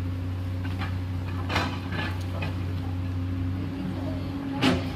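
Komatsu hydraulic excavator's diesel engine running steadily under work, with a few sharp knocks, the loudest near the end.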